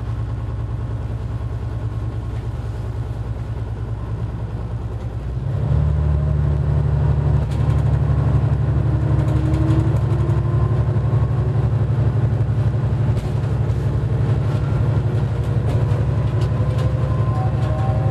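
Diesel railcar's engine idling, heard from inside the cab. About five seconds in the throttle opens: the engine note rises and stays loud as the railcar pulls away and runs along the track.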